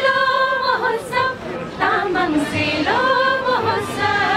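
Group of women singing a Tamang Selo song together, one melody with long held notes.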